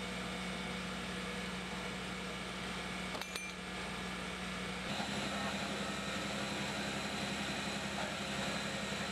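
Fire engine's diesel engine and pump running steadily at a fire scene, with a short metallic clink about three seconds in.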